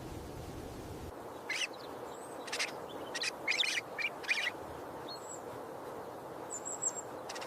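Great horned owl chick peeping from inside its egg as it begins to hatch. About six short, high-pitched calls come in quick succession, then a fainter one near the end, over a steady background hiss.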